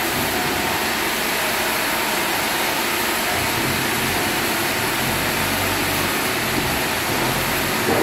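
Sawmill breakdown band-saw line running: a steady machinery drone, with a low throbbing joining in about three seconds in.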